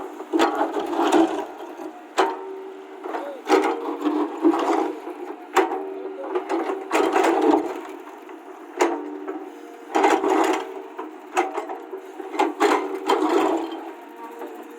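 Small electric motors of radio-controlled construction models whining steadily, with repeated sharp clacks and rattling bursts of the machines working.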